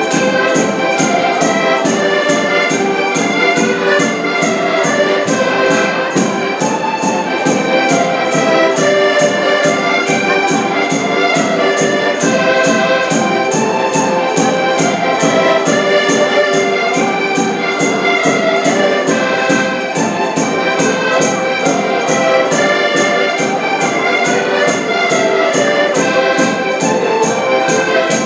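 Traditional Portuguese folk tune played live on five accordions, with a bass drum keeping a steady fast beat.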